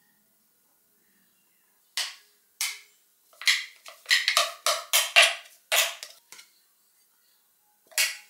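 A utensil knocking and scraping against a container as thick homemade peanut butter is scooped out: about a dozen short, sharp knocks and scrapes, starting about two seconds in.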